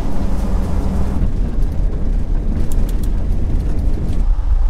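Steady low rumble of a Ford Excursion driving on a gravel road, engine and tyre noise heard from inside the cabin, with a few faint ticks.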